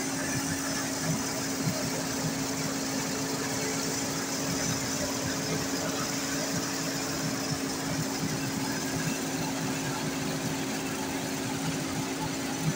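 Small rice mill running steadily, a constant mechanical hum under an even rushing noise as milled rice pours over its sieve tray.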